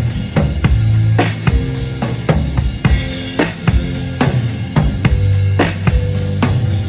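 Live band playing a groove at a sound check: drum kit with kick, snare and hi-hat keeping a steady beat over sustained low bass notes.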